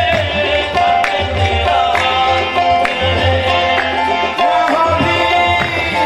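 South Asian devotional music with tabla drumming in a steady rhythm under held melody notes.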